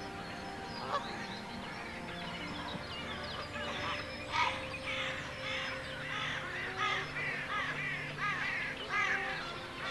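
A flock of birds calling, many short repeated calls overlapping, growing busier about halfway through, over steady background music.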